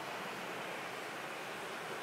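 Steady rush of road traffic, an even noise with no distinct engine or horn standing out.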